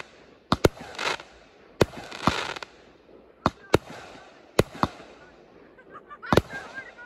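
Aerial firework shells launching and bursting: an irregular series of about eight sharp bangs, a couple of them followed by a brief hiss.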